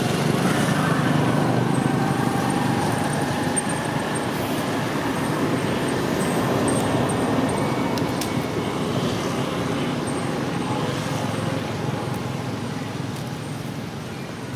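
Steady road-traffic noise: motor vehicles running past, slowly fading in the last few seconds.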